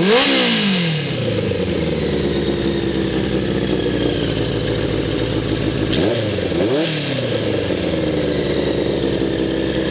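1985 Honda CB650SC Nighthawk's inline-four engine idling through a Supertrapp slip-on exhaust, blipped once at the start and twice in quick succession about six seconds in, each rev rising sharply and falling back to idle.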